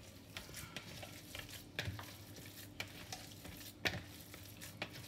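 Seasoned Saumagen filling being mixed in a bowl: a faint, irregular wet crackle with a few sharp knocks, the loudest about two seconds in and near four seconds.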